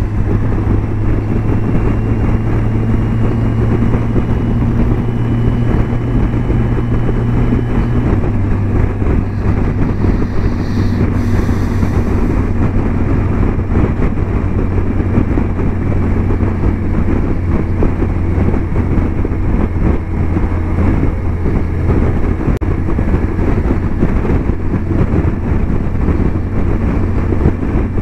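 Kawasaki Versys 1000 S inline-four engine running steadily under way, with wind rushing over the camera microphone. The engine's pitch steps down a little about eight seconds in.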